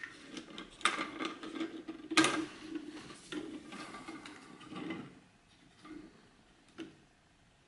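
3D-printed plastic parts of a toy concrete mixer truck being handled and fitted by hand: a run of plastic clicks, knocks and rubbing, the loudest knock a little after two seconds in, thinning to a few small clicks after about five seconds.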